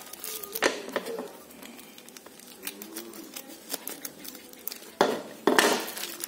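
A plastic parcel mailer being picked at, cut with scissors and torn open by hand: scattered crinkling and clicks, then two loud rips about five seconds in, the second one longer.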